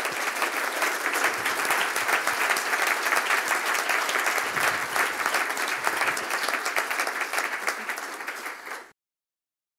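Audience applauding at the close of a speech, a dense steady clapping that eases slightly and then cuts off abruptly near the end.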